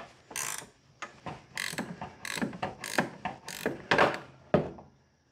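1/2-inch ratcheting wrench clicking in repeated short strokes, about two a second, as a fastener is worked loose.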